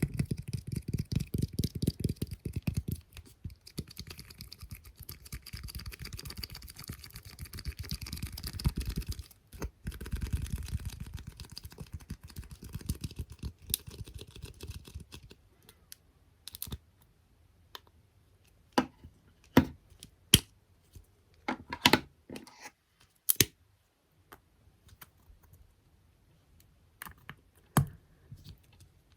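Close-miked ASMR tapping on small objects: fast, dense tapping and scratching for about the first half, then slower, separate sharp taps and clicks.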